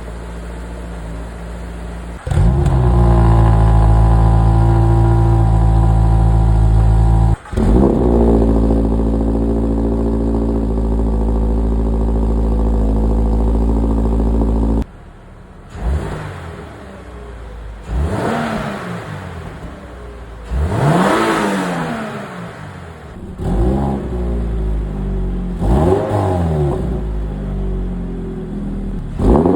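Toyota GR86's boxer four-cylinder engine through an Xforce 3-inch valved catback exhaust. It idles low, then jumps to a loud steady run about two seconds in, broken off briefly near seven seconds. From about fifteen seconds in it is blipped in a series of about six revs, each rising and falling in pitch.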